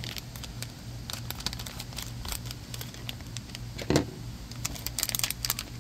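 Scissors snipping open a foil blind-bag packet, the foil crinkling and crackling as it is handled, with one louder knock about four seconds in.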